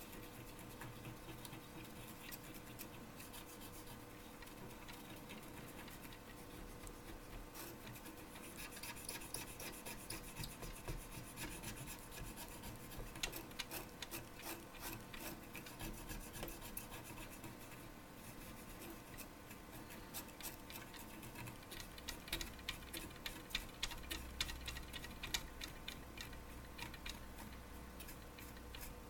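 Scrubbing a printed circuit board clean, a run of short scratchy rubbing strokes. The strokes come in two busier spells, one a third of the way in and another near the end.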